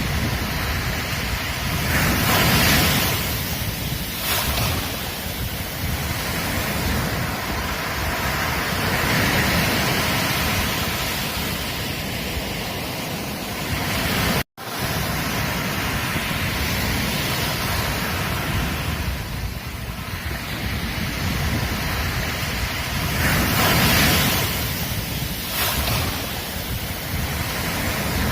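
Ocean surf breaking on a beach: a steady wash of waves that swells louder every few seconds as each wave comes in. The sound cuts out for an instant about halfway through.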